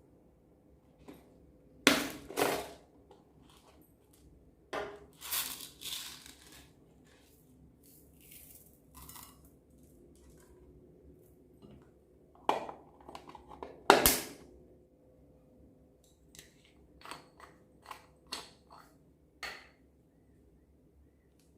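Slime being kneaded and pressed by hand: irregular sticky pops and crackles, with a few louder bursts among quieter clicks.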